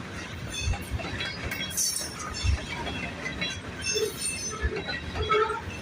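Freight cars of a Union Pacific train rolling past, their wheels knocking and clacking irregularly over the rail joints. A short high wheel squeal comes about two seconds in.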